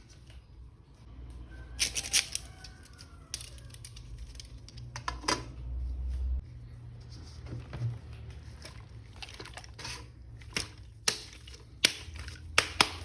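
Irregular clicks and light taps of plastic toy parts being handled, about ten sharp ones scattered unevenly through the stretch.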